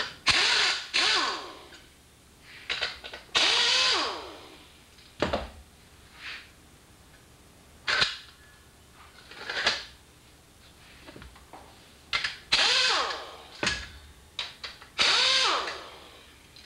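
Air-powered tool with a 13 mm socket spinning out the bolts that hold a Fiero seat's tracks. It runs in several short bursts, each ending in a falling whine as the air motor spins down, with a few knocks of metal parts between the bursts.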